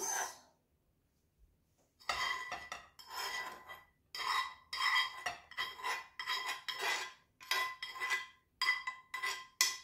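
A metal utensil scraping and knocking vegetables out of a nonstick frying pan, in a run of short strokes about two a second that starts about two seconds in, the pan giving a faint ring with each stroke.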